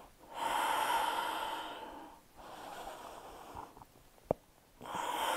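A woman breathing deeply and audibly while holding a yoga pose: three long, slow breaths, each lasting a second or more. There is a short click a little over four seconds in.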